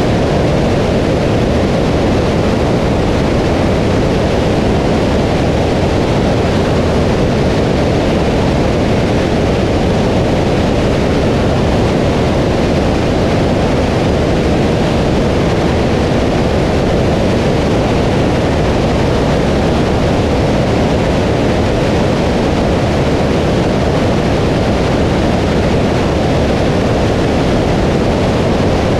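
Steady rush of wind over a camera mounted on the outside of a light aircraft in flight: a loud, even noise weighted to the low end, with no distinct engine or propeller tone standing out.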